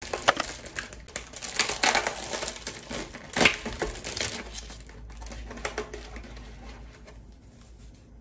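Plastic packaging crinkling and rustling as it is handled: a packet opened, then clear plastic film peeled off a plastic tray of peaches, with sharp crackles. It is busiest in the first half and thins out after that.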